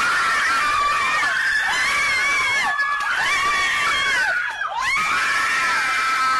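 A woman screaming loudly and without pause, a high shriek that swoops up and down in pitch, with two brief breaks for breath.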